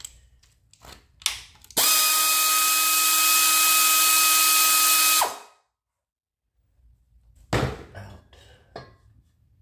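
Power ratchet running on a transmission housing bolt, loosening it: a steady whine over a hiss for about three and a half seconds, starting about two seconds in and stopping sharply. A few handling clicks and knocks come before and after.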